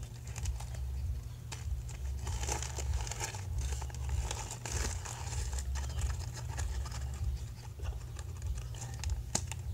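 Thin plastic bag of baking soda crinkling irregularly as it is handled and poked with a pin to make a small hole, over a steady low hum.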